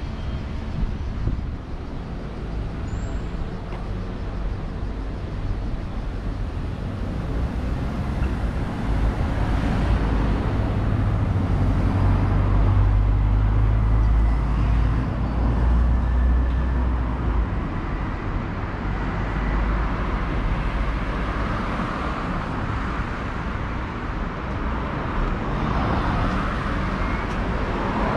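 Street traffic noise, with a motor vehicle passing close and growing loudest about halfway through before fading back to the steady background hum.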